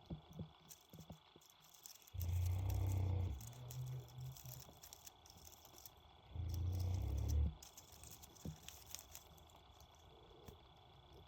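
Mastiff snoring: two long, low snores about four seconds apart, each lasting about a second. Between them come light clicks and rattles from a parakeet playing.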